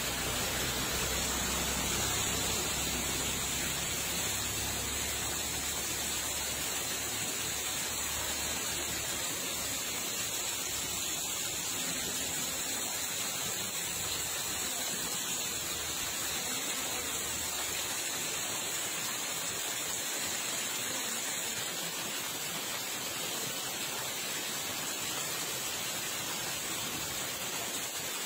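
Floodwater running, a steady rushing noise, with a low rumble under it for roughly the first ten seconds.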